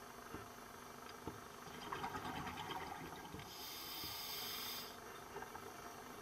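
A scuba diver's breathing heard underwater: a burst of exhaled bubbles crackling and gurgling for about a second and a half, then the regulator's hiss of a breath drawn in for about a second. A couple of faint knocks come before.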